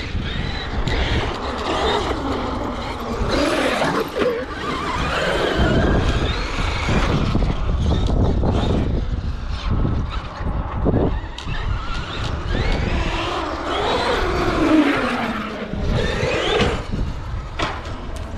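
Traxxas X-Maxx electric RC monster truck running, its brushless motor and drivetrain whining up and down in pitch as it speeds up and slows, several times over.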